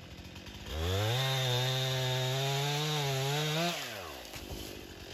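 Stihl MS 261 C-M two-stroke chainsaw idling, then throttled up sharply about a second in and held at a steady high whine for about three seconds while cutting through a small snow-bent birch trunk. It is released near the end and falls back to idle.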